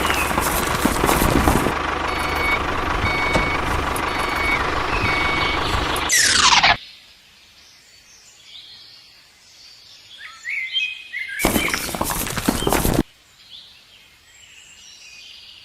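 Loud, steady machine noise with short beeps repeating about once a second, cut off by a quick falling whoosh. Then birds chirping over quiet, broken by a loud hissing burst lasting about a second and a half.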